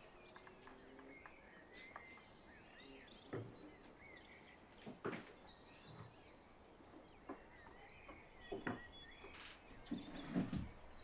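Quiet room ambience with small birds chirping outside, and soft knocks and thumps every second or two, the loudest cluster near the end.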